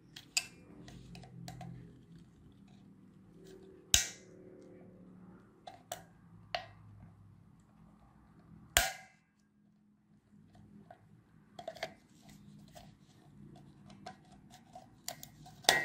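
Sharp cracks and clicks of a 4R25 6V lantern battery's plastic case being pried apart along its glued or welded seam, with two loud snaps, one about four seconds in and one near the middle, and lighter ticking and crackling toward the end.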